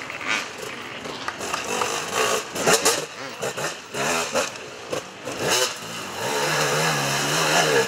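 Enduro motorcycles revving hard on a dirt trail, the engine pitch rising and falling with repeated throttle blips and a few sharp knocks. Near the end one engine holds a steady note.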